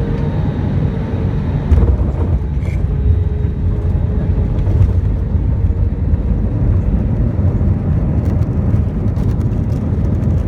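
Cabin noise inside an Airbus A320-214 rolling on the ground after landing: a steady, loud low rumble from the CFM56 engines and the wheels on the runway, with a brief louder jolt about two seconds in.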